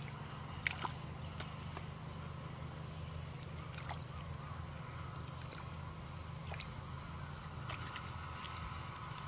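Hands squelching and sloshing through wet mud and shallow water, with a few short sharp clicks and splashes, the clearest about a second in, over a steady low hum.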